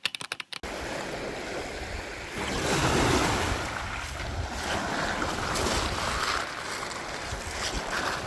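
Waves washing onto a shore, with wind buffeting the microphone. There is a swell of surf about three seconds in, and a few quick clicks right at the start.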